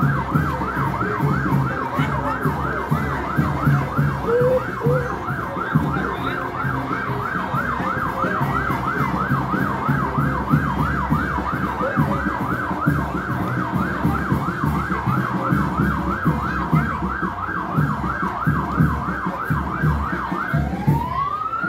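Vehicle siren sounding a fast up-and-down yelp. It switches to a slow rising wail near the end.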